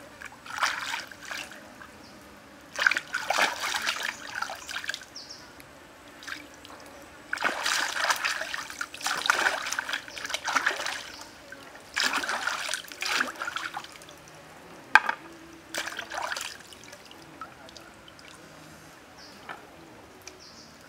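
Water splashing and sloshing in irregular bursts as an octopus is scrubbed and rinsed by hand in shallow stream water, over a faint steady trickle of the stream. One sharp click about two-thirds of the way through, and the splashing dies down in the last few seconds.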